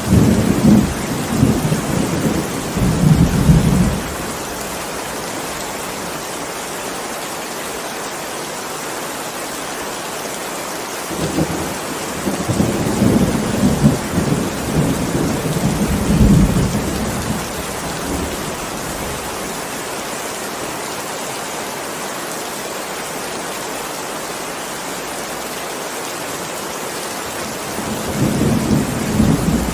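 Heavy rain falling steadily, with rolling thunder rumbling three times: at the start, for several seconds in the middle, and again near the end.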